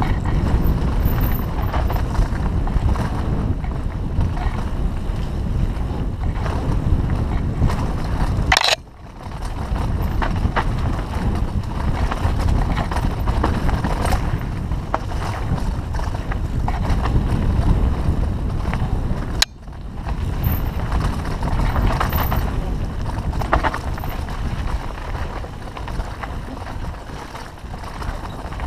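Wind rushing over the microphone with rumbling tyre and trail noise from a mountain bike riding fast downhill. The noise drops out abruptly twice, about 9 and 19 seconds in.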